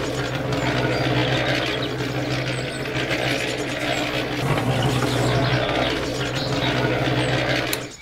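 Small electric motor of a miniature toy concrete mixer running steadily with a rattly whir, then cutting off sharply just before the end as it is switched off.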